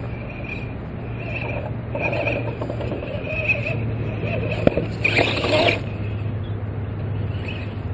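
Radio-controlled rock crawler's electric motor and drivetrain running with a steady low hum and pulsing whine as it crawls between two tree trunks. A sharp knock comes about four and a half seconds in, followed by a brief scraping burst.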